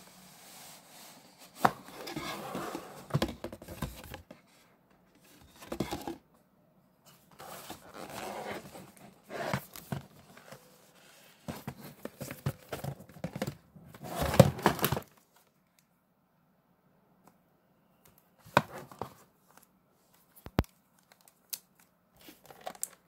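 Cardboard and plastic packaging of 1:64-scale die-cast model cars being handled and opened: the box sliding and rubbing, plastic crinkling and tearing in several bursts with quiet gaps between, and a few sharp clicks near the end.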